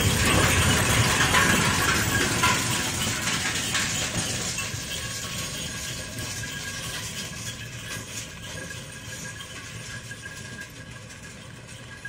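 Bullock carts rolling along a paved road, their spoked wheels and wooden frames rattling and clattering, fading steadily as the carts draw away.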